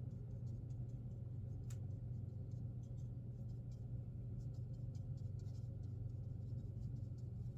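Soft scratchy strokes of a swirl mop brush laying a watercolor wash onto rough watercolor paper, with scattered faint ticks and one sharper click about two seconds in. A steady low hum runs underneath.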